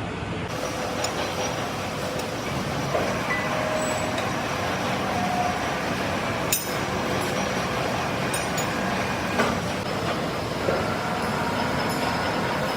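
Metalworking machinery running steadily in a workshop, with a few sharp metallic clinks and knocks over the top, one clear one past the middle and more near the end.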